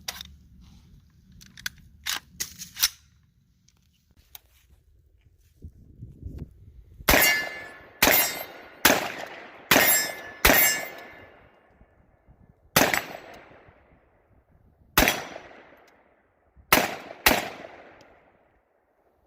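Anderson AM-15 AR-15 rifle in 7.62x39 firing nine single shots at an irregular pace, each report trailing off in a long echo. A few lighter clicks come in the first three seconds, before the shots.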